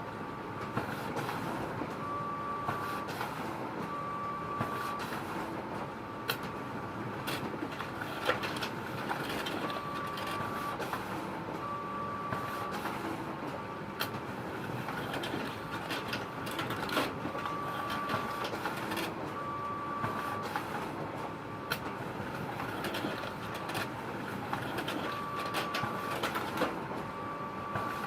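Photocopier running: a steady mechanical whir with a constant hum. A higher tone comes and goes in stretches of about a second, mostly in pairs every several seconds, with scattered sharp clicks.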